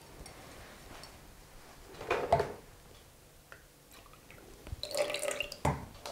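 Cream being poured into a bowl, a faint liquid pouring and dripping, with louder stretches about two seconds in and near the end.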